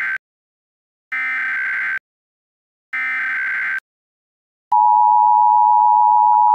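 Emergency Alert System SAME header: the last of one burst of warbling digital data tones, then two more identical bursts a little under a second long with short gaps between. About 4.7 seconds in, the loud, steady two-tone EAS attention signal begins.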